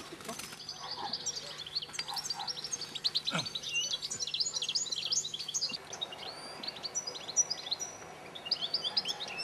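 European goldfinches twittering and chirping: a dense, continuous run of quick high chirps.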